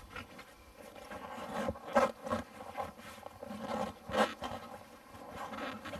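Rubber tyre and inner tube scraping and rubbing against the wheel rim as the tube is tucked in under the tyre's bead by hand. There are sharper knocks about two seconds and about four seconds in.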